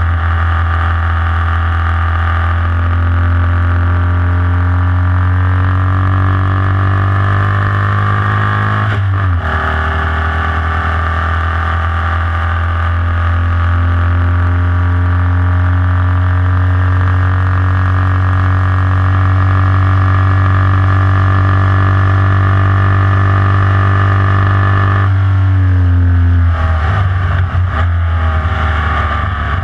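Formula Vee race car's air-cooled Volkswagen flat-four engine, heard onboard, pulling at full throttle with its pitch slowly climbing. There is an upshift about nine seconds in, and near the end the driver lifts off and downshifts for a corner, so the note drops and turns uneven.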